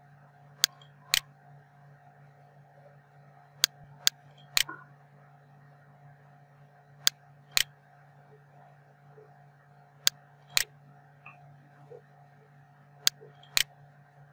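Computer mouse clicking: sharp, loud clicks every few seconds, mostly in pairs about half a second apart, over a steady low electrical hum.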